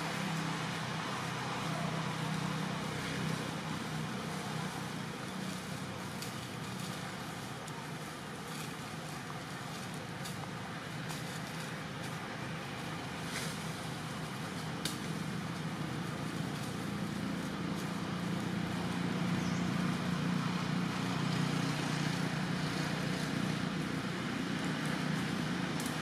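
Steady outdoor background noise, a low rumble under an even hiss, with two faint clicks around the middle.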